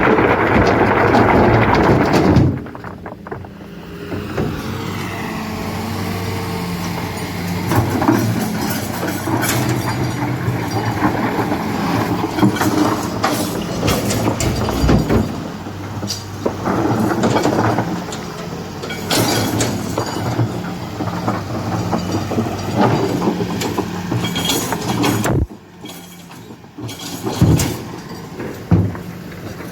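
Heavy-equipment diesel engine running steadily, with intermittent knocks and clatter; a louder passage cuts off about two and a half seconds in.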